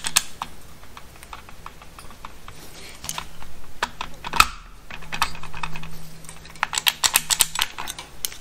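Small-block Chevy distributor being twisted back and forth and worked up out of the block, making a run of light, irregular metallic clicks and taps, with a sharper knock about halfway through. Its brand-new O-rings make it stiff to pull out.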